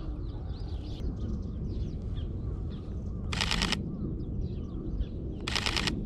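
Sony A7III mechanical shutter firing two short bursts of rapid clicks, a little past halfway and again near the end, over small birds chirping.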